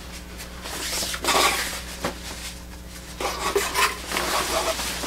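A large printed cloth being unfolded and shaken out by hand, the fabric rustling and swishing in a few irregular bursts.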